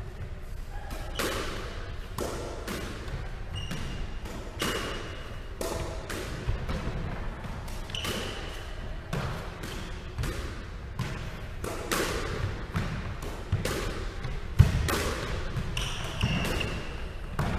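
Squash ball struck by rackets and smacking off the court walls and wooden floor, about one sharp echoing hit a second, with the hardest crack near the end. A few short high squeaks come in between.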